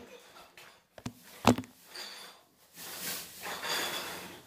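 Handling noise close to the microphone: two sharp knocks about half a second apart, the second louder, then soft rustling.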